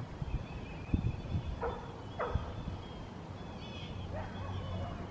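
Dogs barking: two short barks a little over a second and a half and about two and a quarter seconds in, then a few fainter ones near the end, over a low rumble.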